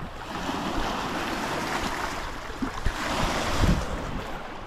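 Lake waves washing against the shore in swells, with wind buffeting the microphone in a few low thumps past the middle.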